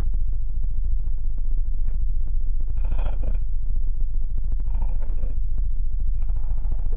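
A steady low rumble, with three short rustling noises about three, five and six and a half seconds in.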